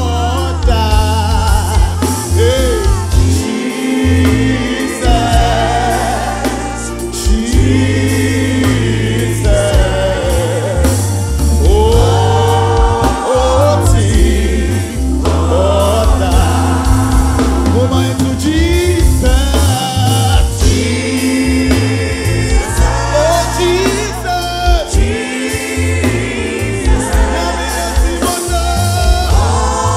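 Live gospel worship song: a male lead singer with backing voices over a full band, with drum kit, hand drums, keyboard and a heavy bass line.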